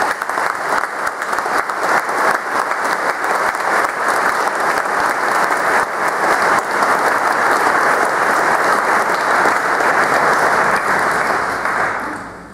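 Audience applauding: dense, sustained clapping from a large crowd that holds steady, then dies away near the end.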